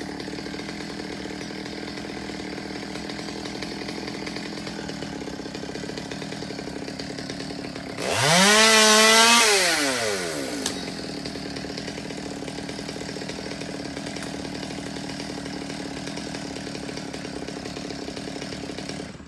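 Chainsaw idling steadily, revved up briefly to high speed about eight seconds in, then dropping back to idle.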